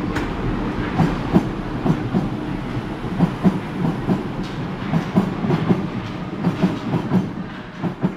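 Paris Métro MF77 steel-wheeled train moving past the platform: a steady rolling rumble with rhythmic knocks from the wheels passing over rail joints.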